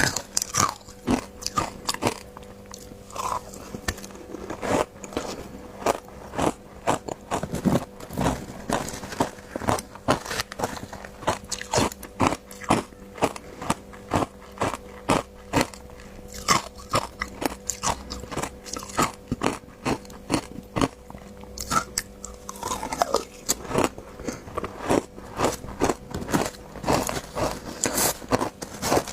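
Ice being bitten and chewed close to the microphone: a quick, irregular run of hard crunches and cracks, several a second.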